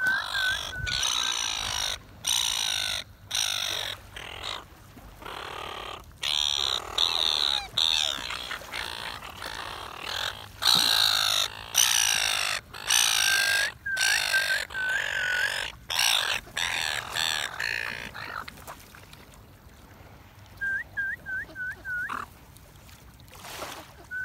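Silver gulls squawking loudly over one another in a crowd, harsh overlapping calls with brief gaps, mixed with short runs of quick repeated higher notes. Near the end the squawking dies down, leaving only a couple of these quick runs of notes.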